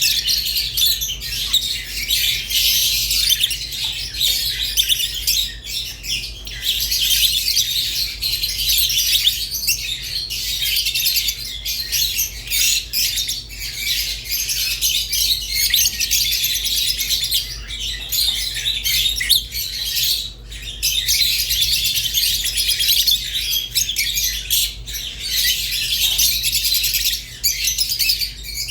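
Rosy-faced and Fischer's lovebirds chattering and chirping without pause, a dense, high-pitched twittering of many short calls with occasional squawks.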